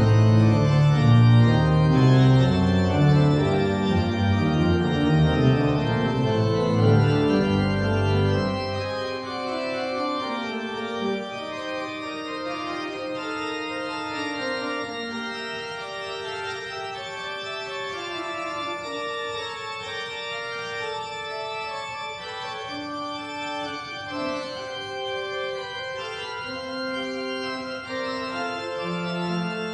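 Church organ playing slow, sustained chords. About nine seconds in, the deep bass notes drop out and the music goes on more quietly in the middle and upper range. Low notes return near the end.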